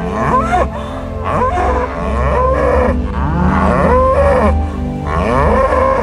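Cattle mooing: a string of drawn-out calls, several overlapping, each bending in pitch.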